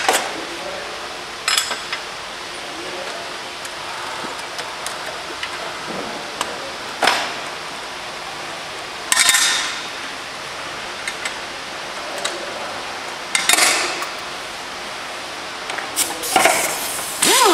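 Motorcycle assembly-line work: metal tools clinking on the rear axle and chain adjuster, with several short, sharp hissing bursts of air tools against a steady workshop hiss. Near the end a short whine falls in pitch.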